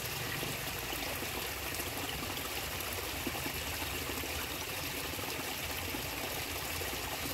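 Small stream running steadily, an even trickling water noise.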